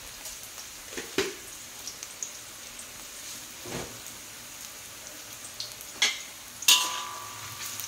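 Sliced shallots and squid frying in oil in a wok: a steady, light sizzle. A few faint clicks sound through it, then a sharper knock near the end, followed by a faint steady tone.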